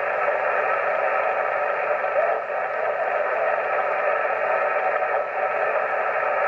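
Steady hiss of strong local interference from a Yaesu FT-897 transceiver's speaker in USB (single-sideband) mode, the S-meter held at S7 to S8 by the noise. The hiss stays even while the receiver is tuned.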